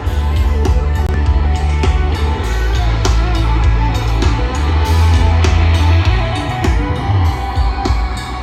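Loud rock music with electric guitar, heavy bass and a steady drum beat.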